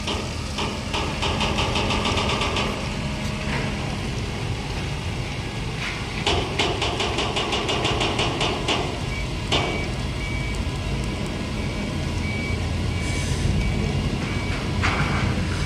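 Engines of a forklift and a berthed ship running steadily with a low rumble. There are spells of rapid, evenly spaced clicking. In the second half a faint beep repeats about twice a second, like a reversing alarm.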